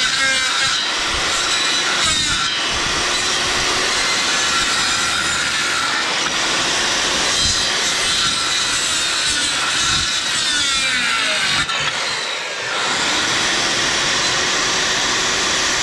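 Makita circular saw running and cutting through frozen moose ribs, meat and bone, in one long steady cut, with a brief easing of the sound about three quarters of the way through.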